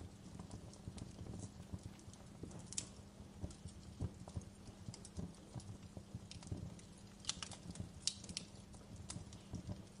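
Fire crackling with irregular sharp pops, a few louder than the rest, over a steady low hum.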